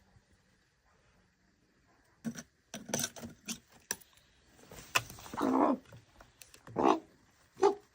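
Raven at a food tube: a quick run of clicks and taps about two seconds in, then three calls, the longest about halfway through and two shorter ones near the end.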